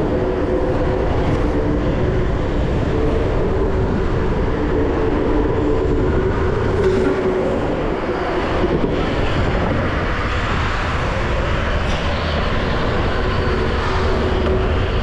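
Steady noise of travelling fast on a road, as on a downhill longboard run: continuous rolling and rushing with a faint steady hum underneath, unbroken throughout.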